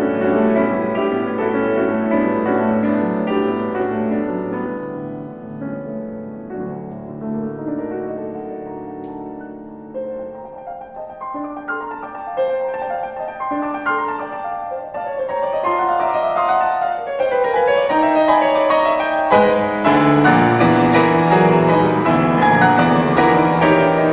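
Solo piano music, softer through the middle and fuller and louder from about three-quarters of the way in.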